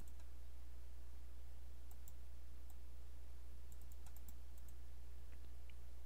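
Scattered light computer mouse clicks, several close together about four seconds in, over a steady low hum.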